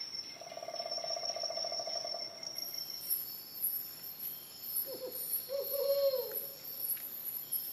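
Steady high-pitched insect trilling. A low buzzing, pulsing call runs for about two seconds near the start, and a few short calls that bend in pitch come about five to six seconds in.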